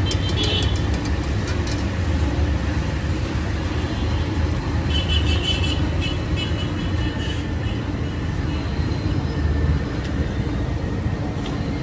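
Steady low rumble of street background noise, with a few sharp clicks right at the start.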